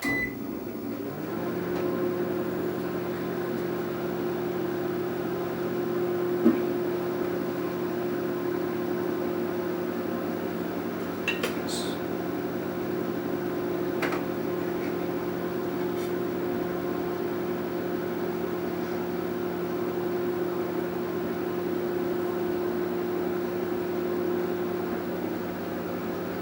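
Taurus Exclusive 25-litre microwave oven gives a short beep as it starts, then runs with a steady hum. A few faint clicks come through the hum.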